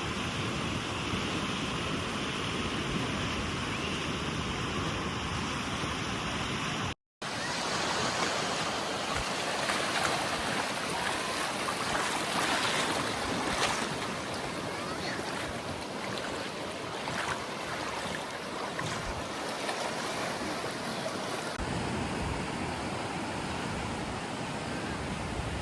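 Steady rushing outdoor noise, with a brief cut to silence about seven seconds in, after which the rushing carries on with a slightly different, uneven texture.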